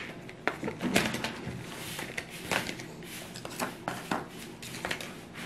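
Curtain fabric and cardboard tissue rolls being handled, rustling, with irregular clicks and taps as a metal curtain rod is pushed through the curtain's grommet rings.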